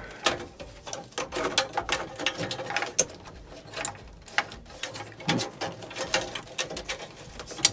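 Cable connectors being unplugged and ribbon cables handled inside an old Power Macintosh's metal case: irregular small clicks, knocks and rustles.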